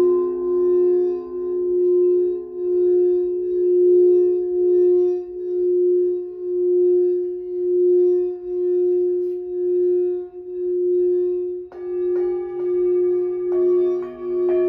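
Singing bowls ringing: one bowl's steady tone swells and fades in slow, even pulses. About twelve seconds in, further bowls are struck, adding new higher and lower ringing tones.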